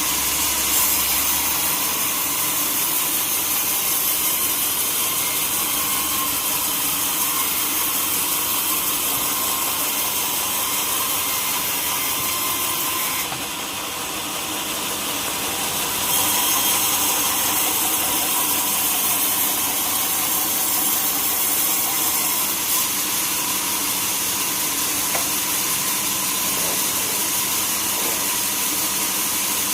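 Sawmill saw running steadily as it cuts a hardwood log, with a steady hum and hiss; the sound dips briefly about halfway through.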